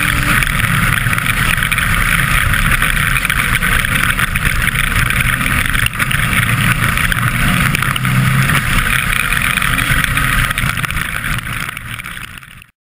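Off-road race buggy at speed on a gravel track, heard from a camera mounted on the car: its Mitsubishi Evo 2.0-litre turbocharged engine running hard under a loud, steady rush of wind and road noise. It fades out near the end and then cuts off.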